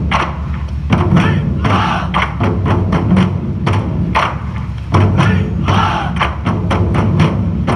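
Background music with a heavy, steady drum beat and a strong bass line.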